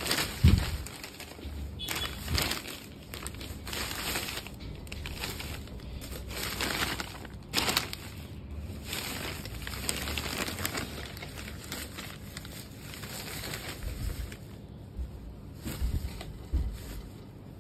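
Rustling and crinkling of an embroidered cotton saree as it is handled and moved, in irregular swishes, with a few dull handling bumps, the loudest about half a second in.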